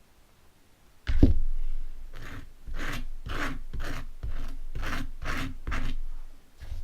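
A table knife spreading butter on a slice of toasted bread: a knock about a second in, then about eight short scraping strokes, roughly two a second.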